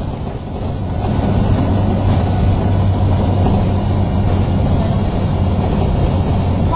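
MAN 18.220 single-decker bus heard from inside the saloon while under way: a steady diesel engine drone with road rumble. The drone dips briefly just after the start and then picks back up.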